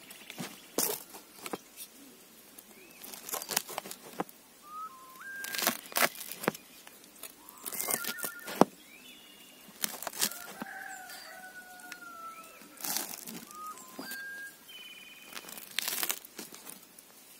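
A large serrated blade crunches down through a pizza's crisp baked crust and knocks on the wooden board beneath, in a string of separate cuts. Small birds chirp and whistle in the background throughout.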